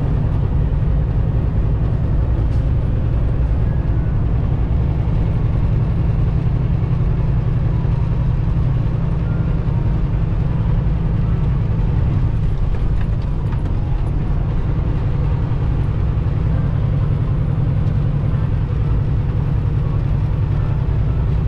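Semi-truck diesel engine running at a steady speed with road noise while driving, a constant low drone.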